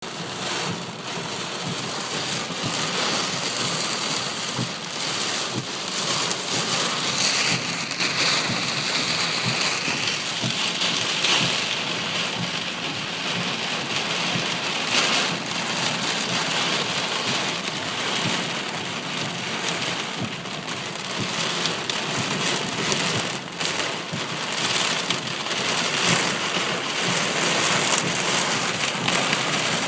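Heavy storm rain pelting a car's roof and windshield, a dense steady drumming with many sharp individual hits throughout.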